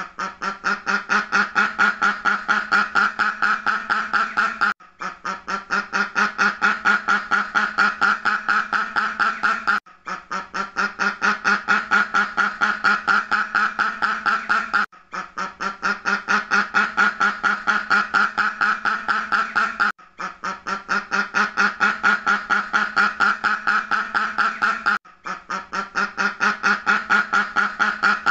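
Duck quacking in a rapid, continuous run of nasal quacks, about five a second. It is a loop that repeats about every five seconds: each pass starts a little quieter, builds up, and is cut off by a brief gap before the next.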